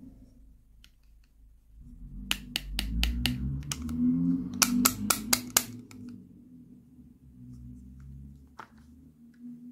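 Toy food pieces being handled and set against a plastic play tray: a run of about five quick, sharp clicks about two seconds in and another run around halfway, over low handling noise.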